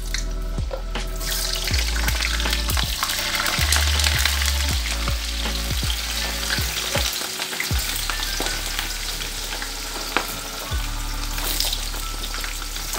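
Potato slices frying in hot oil in a wok: a steady crackling sizzle that swells about a second in as the next batch of slices goes into the oil, strongest a few seconds later.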